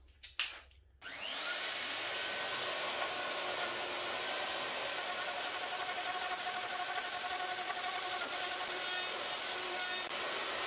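A sharp click, then about a second in a Festool plunge router starts up and runs steadily under a dust extractor's hiss, its 160 mm long-reach cutter plunging deep into the door edge for a lock mortice.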